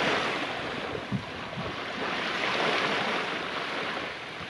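Steady rush of wind and sea waves, an even hiss with no pitch to it.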